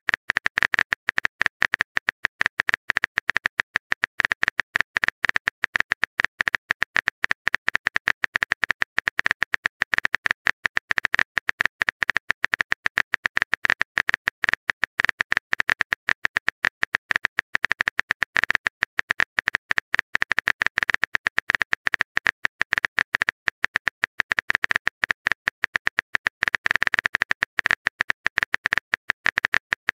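Rapid, continuous clicking, many clicks a second, each with the same sharp high ring.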